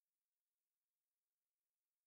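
Silence: the soundtrack is empty.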